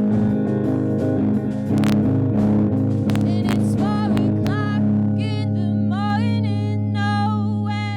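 Live guitar music with plucked strings and a sustained low bass line, high gliding notes rising over it in the second half, and a held low chord that stops abruptly at the end.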